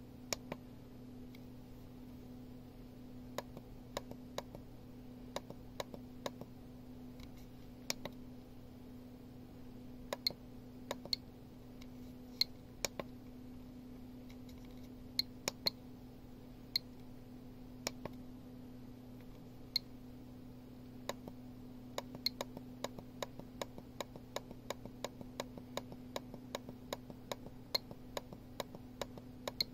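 GQ GMC-500 Geiger counter clicking: scattered sharp clicks, some carrying a short high beep, that become a steady run of about three a second in the last third.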